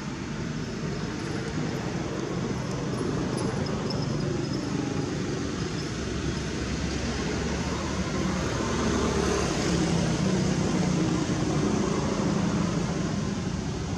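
Steady low rumble of vehicle traffic, swelling a little about eight seconds in.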